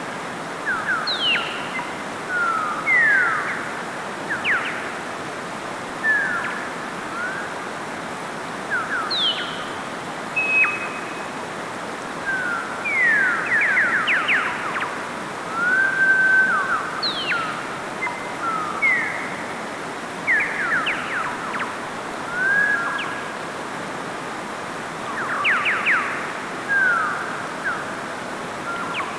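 Mountain stream rushing steadily over rocks, with small birds chirping and whistling in short bursts of quick sweeping and level notes throughout.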